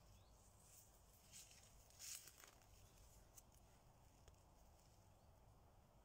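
Near silence, with a few faint crackles about one and two seconds in.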